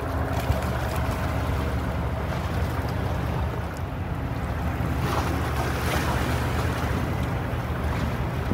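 Steady low engine rumble of a vessel on the water, mixed with wind and water noise.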